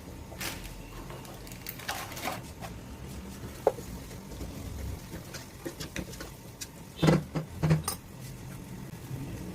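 Metal kitchen utensils clinking and tapping against a pot or pan, with scattered light taps, a brief ring near the middle and a cluster of louder knocks about seven seconds in, over a steady low hum.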